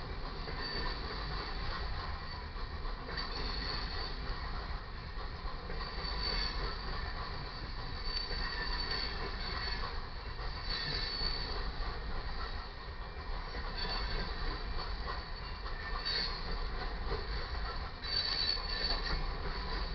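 Loaded coal cars of a Union Pacific freight train rolling past with a steady low rumble and clatter. High-pitched wheel squeal rises and fades several times as the wheels grind through the turnout from the siding onto the main track.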